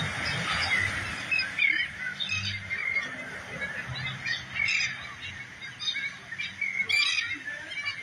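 A large flock of seabirds calling over the water: a dense chorus of short, harsh, overlapping calls, over a low rushing noise underneath.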